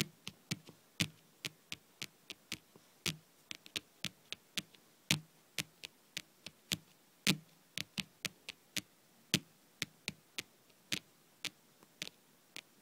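Long painted fingernails tapping on a tabletop: an uneven run of sharp clicks, a few each second, some soft and some loud, the loud ones with a dull knock under them.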